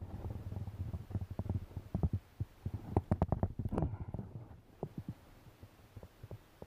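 Handling noise from unhooking a bass: irregular clicks and knocks over a low rumble that comes and goes, dying away near the end.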